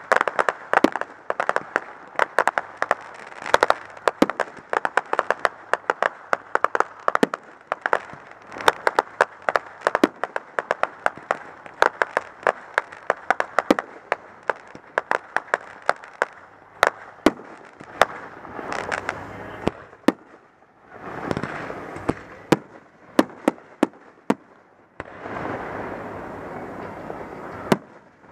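Aerial fireworks display: a rapid, dense string of sharp bangs and pops for the first half, then sparser, separate bangs with noisier stretches between them.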